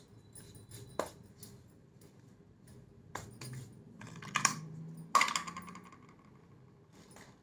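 Glass storage jars being handled on a hard surface: scattered light clicks and clinks of glass, with two louder knocks about four and a half and five seconds in.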